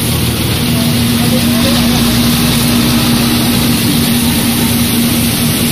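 Rotexmaster tub crusher running and grinding, with a wheel loader's diesel engine running close by: a loud, steady machine din with a constant hum.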